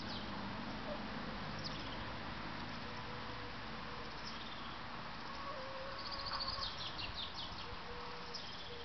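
Outdoor background with a steady hiss and short high chirps, a quick cluster of them about six to seven seconds in, over faint drawn-out low notes.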